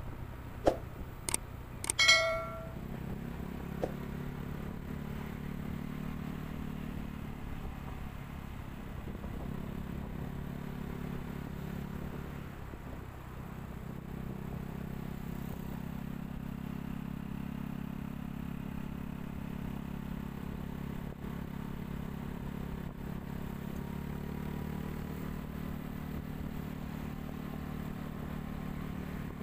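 Vehicle engine running steadily while riding along a road, heard from on board, its note dipping briefly about halfway through. A few sharp clicks and a brief high-pitched tone come about two seconds in.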